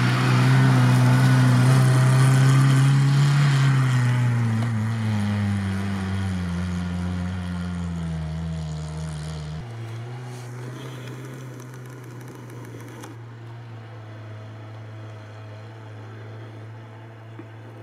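Off-road vehicle engine running as a steady low hum, its pitch slowly falling over the first several seconds. It then carries on more quietly and evenly, gradually fading out.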